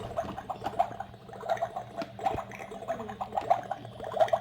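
Bubbling, gurgling boiling sound from a pretend-cooking toy, an irregular string of pops about two or three a second.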